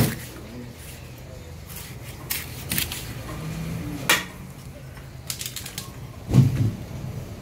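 A cleaver chopping through fish into a wooden chopping block: several sharp knocks spaced irregularly, with a heavier thump near the end.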